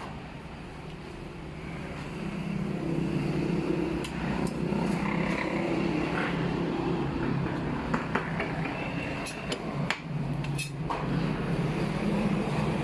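A steady low mechanical hum, with a few sharp metallic clinks and taps of tools and parts during work on a car's automatic transmission.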